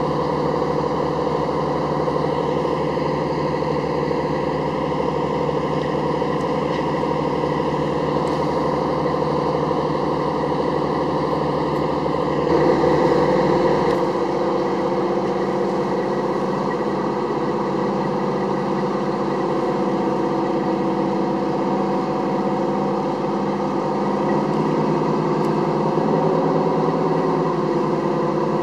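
Diesel engines of a LARC-LX amphibious cargo vehicle running steadily as it drives down the beach into the shallows. About halfway through the engine note shifts and briefly gets a little louder.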